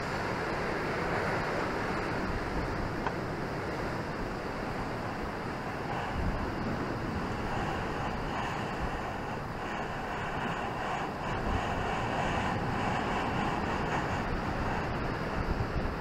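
Sea surf breaking on a rocky shore: a steady, continuous rush of waves and foam.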